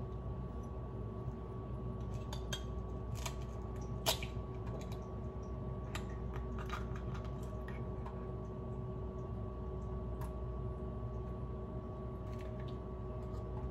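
Faint small clicks and crackles of eggshell being picked apart by hand, with one sharper click about four seconds in, over a steady low background hum.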